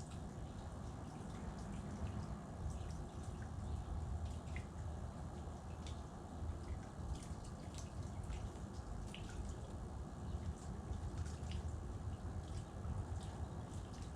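Outdoor ambience: a low steady rumble with many faint, irregular high ticks and clicks scattered throughout.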